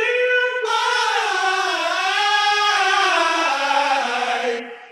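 Singing voice from an a cappella vocal track: long held notes with no backing music, drifting slowly and stepping lower near the end.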